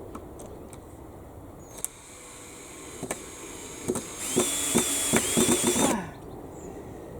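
A few knocks, then a cordless drill runs for about two seconds, driving a screw into timber, and winds down near the end.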